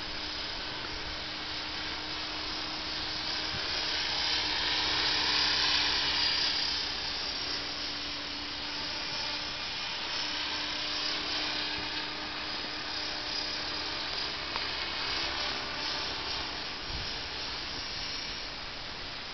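Blade 550X electric RC helicopter in flight: a steady high-pitched whine from its rotor head, brushless motor and gears. The whine swells louder about five seconds in, then eases back.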